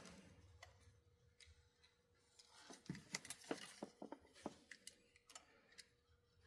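Quiet, faint clicks and light taps of small tools and parts being handled, clustered in the middle of a few seconds.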